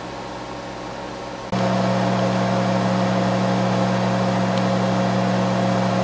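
Breville Smart Oven Air countertop convection oven running: a steady fan and motor hum that becomes much louder about a second and a half in and then holds level.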